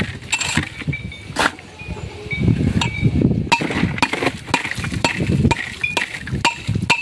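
A long metal blade chopping and crushing blocks of ice in a plastic cooler box over fish, giving irregular sharp clinks and cracks mixed with dull thuds.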